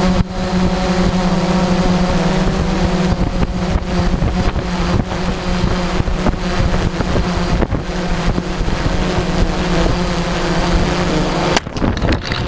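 Blade 350 QX2 quadcopter's four brushless motors and propellers whining steadily at one pitch, recorded by the onboard GoPro, with wind rushing over the microphone. Near the end the motor tone cuts off suddenly and a short rough jumble of noise follows as the drone comes down and crashes.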